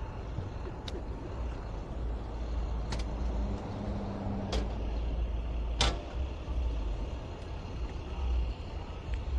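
Street traffic: a road vehicle's engine rumbling low and steady, with four sharp clicks about a second or two apart.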